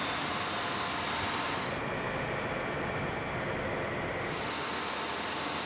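Handheld gas torch flame hissing steadily as it is played over a tank's coiled sampling tap, flaming the tap to sterilize it before a beer sample is drawn. The high part of the hiss dulls for a couple of seconds in the middle, then returns.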